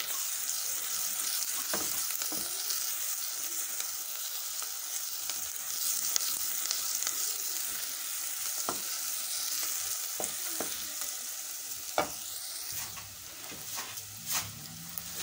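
Diced shallots sizzling gently in fat in a stainless steel pot, at the sweating stage before they turn colour. A wooden spatula stirs them, scraping and knocking against the pot now and then.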